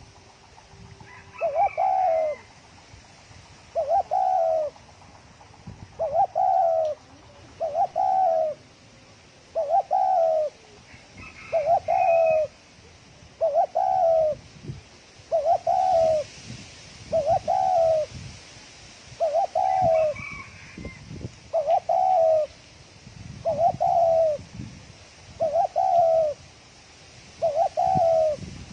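Spotted dove cooing in a fast-tempo 'thổ còi' call, the same short phrase repeated about every two seconds, with a few faint higher chirps in between.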